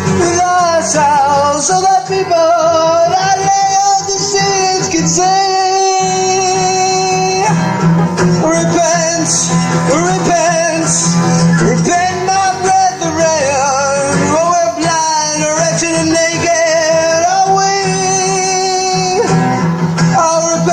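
Music: a song with a sung melody over instrumental accompaniment.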